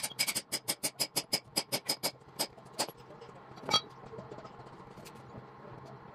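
Hand hammer striking metal at a valve seat on a Mercedes cylinder head to knock it out: a quick run of about sixteen ringing blows over some three seconds. A single louder clank follows about a second later as the hammer is put down on the floor.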